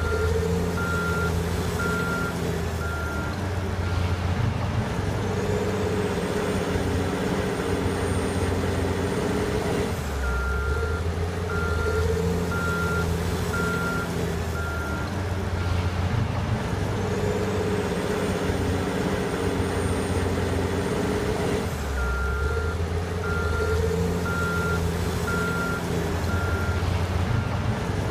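Caterpillar 980 wheel loader working a pile in repeated cycles: the heavy diesel engine revs up and settles, with a high whine that climbs as it revs. The backup alarm beeps steadily at the start, again about ten seconds in, and again near the end, each time the loader reverses.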